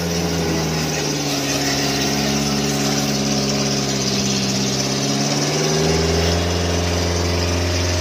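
Off-road 4x4's engine running at low, steady revs as it crawls through mud; its note shifts slightly and grows heavier about six seconds in.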